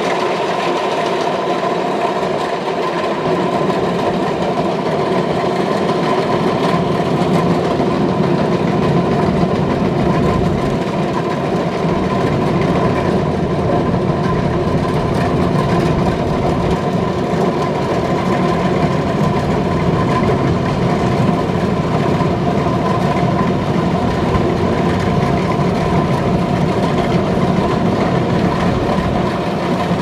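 Kubota DC-105X combine harvester running steadily as it cuts rice, its diesel engine and working machinery giving a continuous mechanical drone. The sound grows a little louder and deeper a few seconds in as the machine comes closer.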